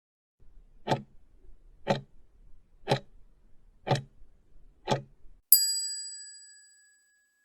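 Quiz countdown-timer sound effect: a clock ticks five times, once a second, then a single bright bell ding rings out and fades over about a second and a half, signalling that the answer time is up.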